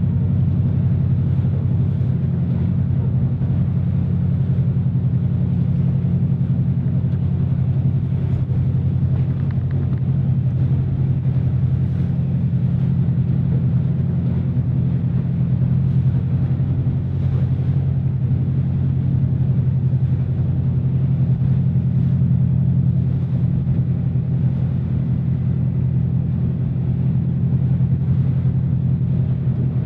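Marine engine running steadily underway: an even, low drone holding a few fixed pitches, with the hiss of water and wash beneath it.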